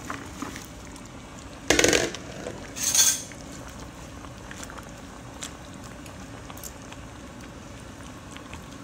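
Chopped vegetables tipped from a plate into a pan of simmering tomato sauce, with two loud clatters about two and three seconds in as they are pushed off the plate. The sauce then bubbles steadily with faint pops.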